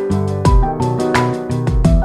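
Background music with a steady beat: pitched melodic notes over regular kick-drum hits.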